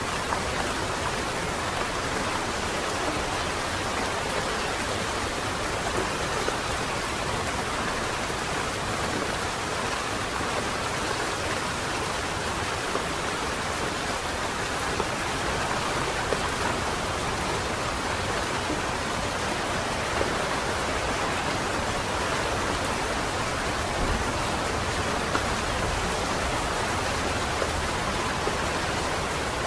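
Steady rain falling on a wet street: an even hiss that holds level throughout.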